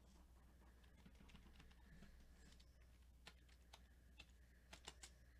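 Near silence broken by a handful of faint computer keyboard clicks in the second half.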